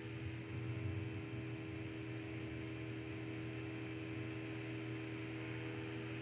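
Steady electrical hum with several held tones and a faint hiss.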